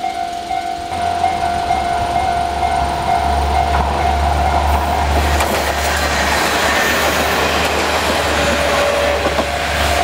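Japanese level-crossing electronic warning bell ringing steadily while a JR Hachikō Line KiHa 110-series diesel railcar approaches. The railcar's engine rumble and wheel noise start about a second in and grow louder.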